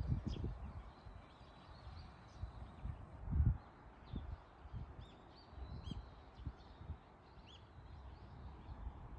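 Small birds chirping in short, repeated calls, over a steady outdoor hiss, with irregular low thumps, the loudest about halfway through.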